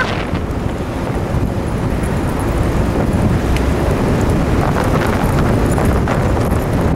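Wind buffeting a moving camera's microphone: a steady, heavy low rumble.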